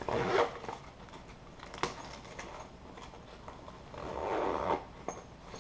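Nylon fabric rustling as a mosquito net is stuffed back into a sling bag's front pouch, with a sharp click about two seconds in and another longer rustle about four seconds in.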